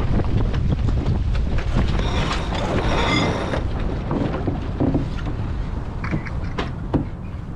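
Wind buffeting the microphone and water rushing past a sailboat under way, as a steady low rumble. About halfway through comes a brief high squeal, and near the end a few sharp knocks.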